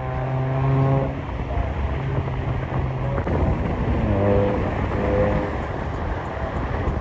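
Car engine running under steady low road and wind rumble, with a steady drone in the first second and brief wavering tones around four and five seconds in.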